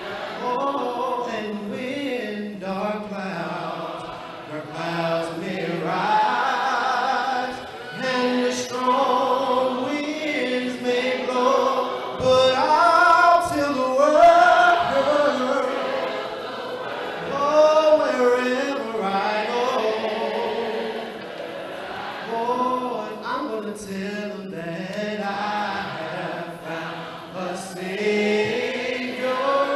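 Gospel singing led by a man's voice at a microphone: slow, drawn-out notes that slide up and down, with a choir-like fullness.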